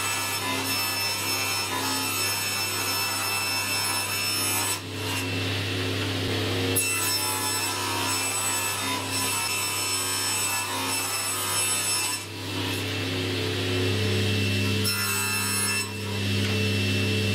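Table saw running steadily, its motor humming while the blade cuts through long laminate flooring planks fed along the fence. The cutting noise dips briefly three times, between passes.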